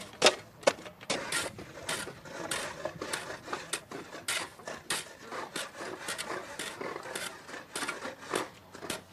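Long-handled shovel scraping up wet salt crystals from the floor of a salt pan. It makes rapid, irregular crunching scrapes.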